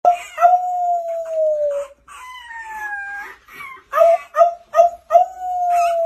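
A small puppy and the man holding it howling together. It opens with a long howl that slowly falls in pitch, then a higher wavering howl, then four quick short yips, then another long falling howl.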